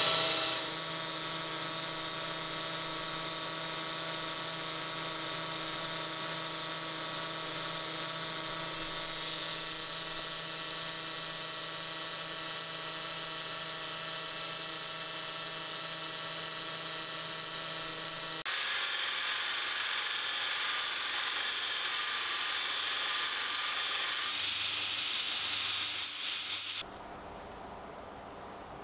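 Makita cordless drill running at a steady speed, turning the rotary welding table, with a constant whirring hum. About two-thirds of the way through it gives way to a louder, steady hiss that stops suddenly near the end.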